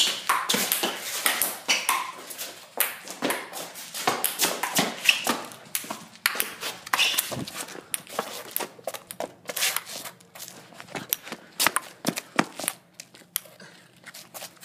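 Fast table tennis rally: a celluloid ball clicking rapidly and irregularly off paddles and table.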